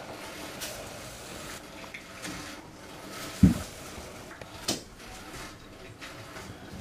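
Kittens moving about on a carpeted step and around plastic food bowls: a dull thump about halfway through, then a sharp click about a second later, over faint scuffling.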